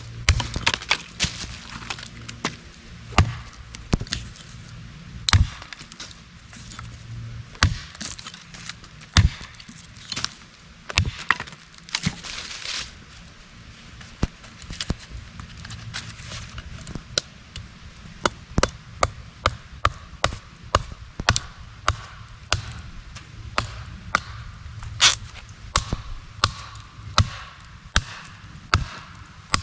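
Wood being split into kindling with a Condor Wayfarer knife: a long run of sharp chopping knocks, irregular at first, then coming about once a second.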